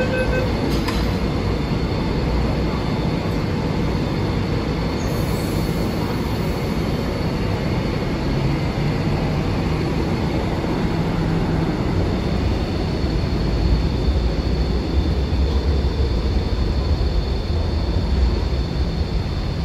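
The door-closing beeps end about half a second in, then an MTR Kwun Tong Line C-train pulls away from the platform. Its wheels and traction motors give a steady rumble with a faint high whine.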